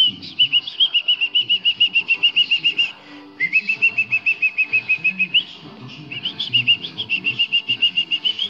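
A songbird singing: three runs of rapid, evenly repeated high whistled notes, about seven a second, each run opening with a rising note, with short breaks between runs.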